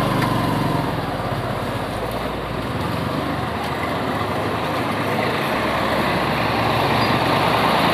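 Motorcycle engine running at low speed, with a tractor's engine coming head-on and growing louder over the last few seconds.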